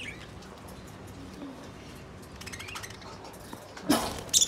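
A cage of budgerigars chirping and chattering softly, then a sudden loud burst of sound near the end followed by sharp, high chirps.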